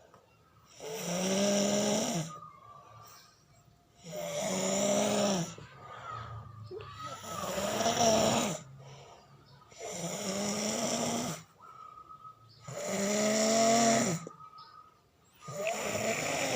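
A sleeping man snoring, with six long snores about three seconds apart.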